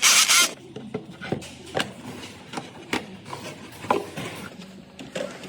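A short, loud burst of hissing, then a run of light clicks and knocks as engine parts are handled and fitted back into place on a Maybach V12 during reassembly.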